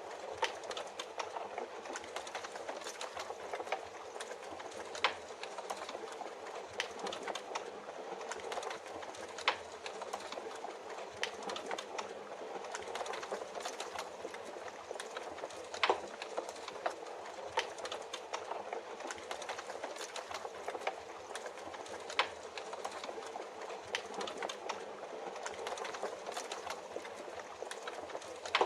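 Wood fire crackling in a fireplace, with irregular sharp pops and snaps over a steady hiss of rain.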